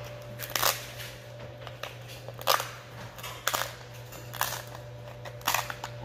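Cooked king crab leg shell cracking and crackling in the hands as the meat is pulled out: about five sharp snaps roughly a second apart, over a low steady hum.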